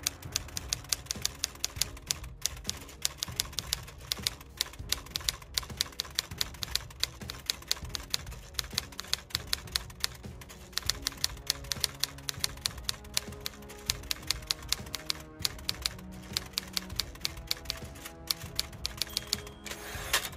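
Typewriter keys clacking in a rapid run of sharp strikes with a few short pauses, a typing sound effect over soft background music.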